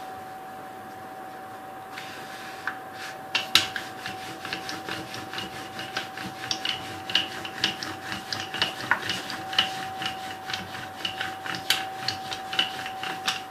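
A rolling pin rolling out a puri on a board: repeated rubbing strokes with light knocks, about two or three a second, starting about three seconds in. A faint steady hum runs underneath.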